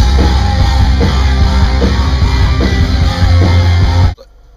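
Loud rock music with heavy bass, guitar and drums, which cuts off suddenly near the end.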